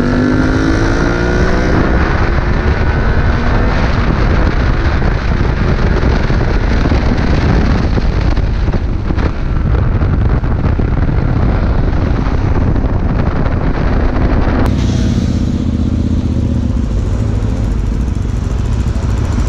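Onboard sound of a 125 cc motorcycle being ridden: wind rush over the microphone and the engine running, rising in pitch as it accelerates in the first few seconds. The sound changes abruptly about fifteen seconds in.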